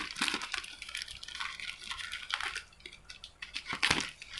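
A plastic parcel mailer being opened by hand: crinkling and rustling plastic with crackles, easing off about three seconds in, then a sharp crackle near the end.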